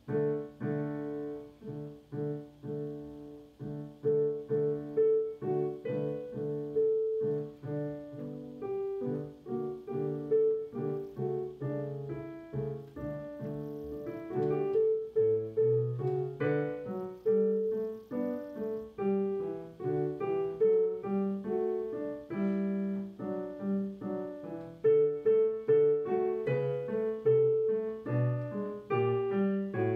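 Solo piano music played on a digital piano: a dance piece in a steady run of separate notes. It starts at the very beginning and grows louder about four seconds in.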